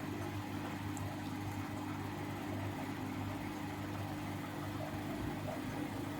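Siemens Siwamat IQ 716 washing machine running, a steady motor hum with a faint whir and no change in speed.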